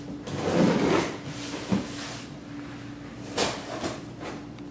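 Scissors slitting the packing tape along the seam of a cardboard shipping box: irregular scraping, tearing rasps of tape and cardboard, with a sharp click a little under two seconds in.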